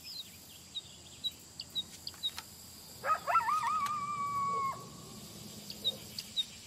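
Forest ambience of small birds chirping in short, high, repeated notes. About three seconds in, a louder whistled call wavers, then holds steady for over a second and stops abruptly.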